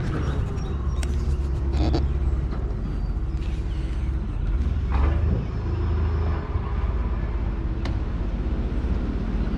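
A vehicle engine idling, a steady low rumble, with a few short knocks on top.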